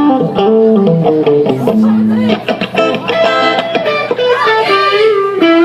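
A live rock band playing amplified, with electric guitar to the fore and a sung melody line over it; the music kicks in right at the start.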